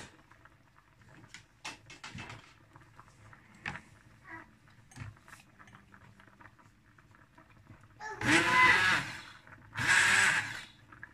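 Hand-held immersion blender puréeing soup in a steel pot, switched on in two short bursts about eight and ten seconds in, after several seconds of faint clicks and knocks from handling the blender and its cord.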